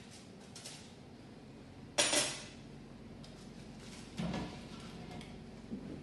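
A metal baking tray of peppers goes back into a home oven. There is one sharp metallic clank about two seconds in, with lighter clinks and knocks around it.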